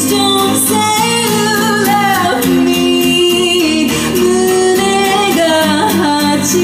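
A female singer singing live while accompanying herself on an acoustic guitar: a slow song with long held and gliding notes over the guitar.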